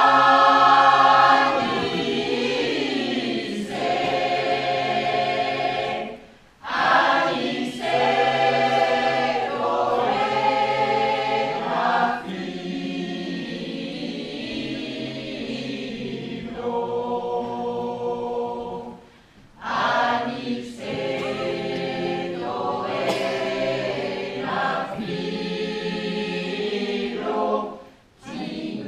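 Mixed choir of men's and women's voices singing in phrases, with short breaks between them about six, nineteen and twenty-eight seconds in.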